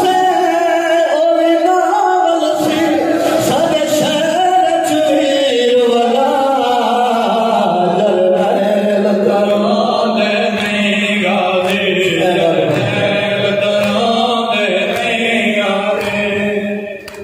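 Men chanting a Saraiki noha, a Muharram lament: a lead reciter with other men singing along into microphones. The chant dies away just before the end.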